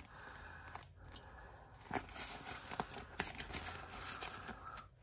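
Soft rustling and crinkling of paper banknotes and a clear plastic binder envelope as bills are slid into it, with a few light ticks and taps.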